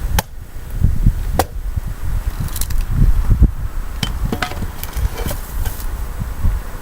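Sharp wooden knocks and clatter of pieces of firewood, two single knocks followed by a quicker cluster of knocks.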